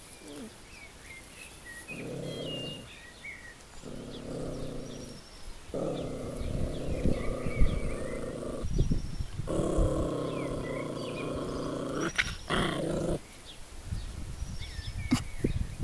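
A dog growling in four bouts, each one to several seconds long, the longest two in the second half.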